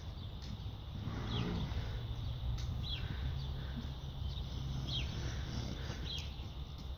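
A small bird calling short falling chirps, about four of them a second or two apart, over a steady low rumble. Under them come the muffled steps of a horse moving over a sand arena.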